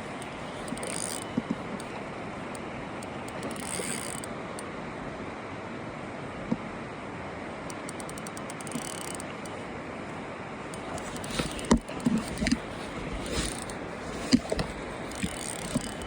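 Fishing reel being worked while a hooked salmon is played in, with runs of mechanical clicking and scattered knocks over a steady rush of river water and wind. The loudest clicks cluster near the end.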